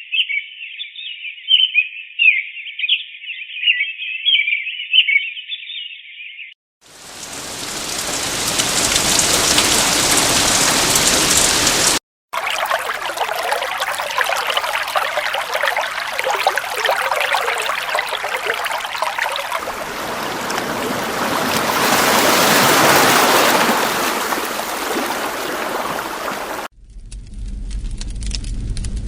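A white noise sound machine's built-in sleep sounds switching one after another. It opens with high chirping for about six seconds. After a short pause comes a steady rain-like hiss, which cuts out for an instant about twelve seconds in and resumes with a different texture. Near the end it changes again to another sound with a low steady hum under it.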